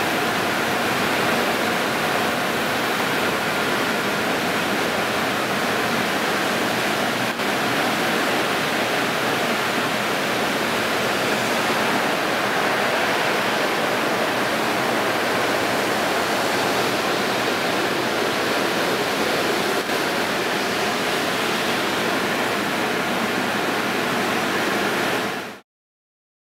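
Water jets of an N/S automatic car wash spraying a car, a loud steady rushing hiss that cuts off suddenly near the end.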